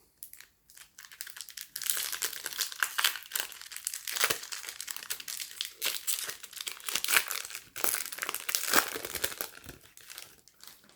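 Crinkly foil wrapper of a Pokémon trading-card booster pack being torn open and handled: a dense, irregular crackle of sharp crinkles that starts about a second in and dies away near the end.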